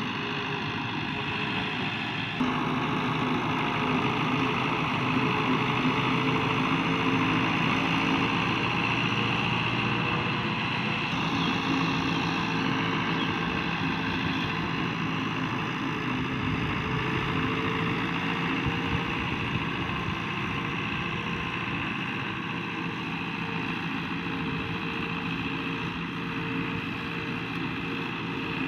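Fiat 640 tractor's diesel engine running steadily under load while pulling a laser land-levelling blade.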